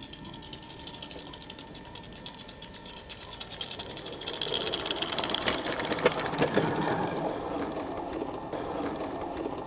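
Small 16 mm-scale live-steam garden-railway locomotive running past on 45 mm gauge track, with rapid exhaust beats and wheels clicking over the rails. It grows louder from about four seconds in, is loudest around six seconds, then fades as it moves away.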